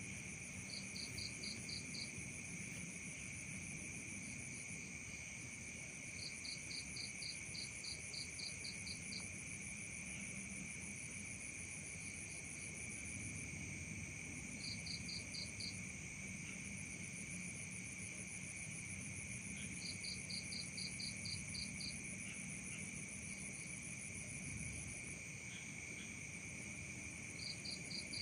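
Night chorus of crickets and other insects in a tropical swamp: several steady, overlapping high-pitched trills, with a separate call of rapid pulses, about four a second, coming in short series several times.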